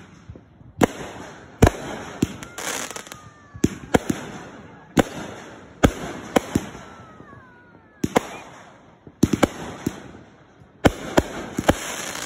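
Aerial fireworks launching and bursting in quick succession: sharp bangs about one to two a second, each followed by crackling. There are a few faint falling whistles and a short lull about two thirds of the way through.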